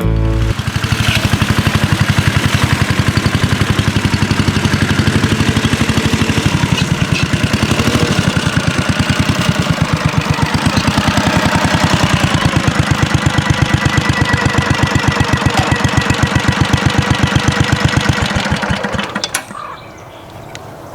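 1963 Cushman Trailster scooter's single-cylinder engine running at a slow, steady chug, each firing beat separate. The engine sound drops away about two seconds before the end.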